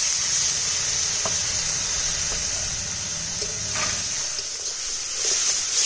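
Spice masala in hot oil in a cooking pan, sizzling steadily with a little water just added to fry it down (kashano). A few faint knocks sound over the hiss.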